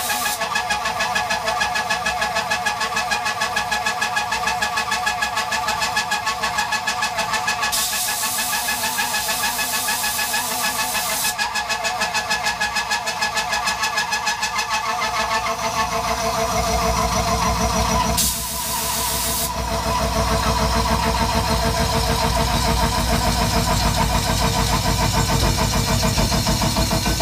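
Tormach PCNC 1100 mill's 4-inch side milling cutter slotting aluminum: a steady, rapid rhythmic cutting sound over the spindle's hum, growing heavier in the low end from about 16 s. Short bursts of compressed-air hiss from a blow gun clearing chips come about 8 s in and again about 18 s in.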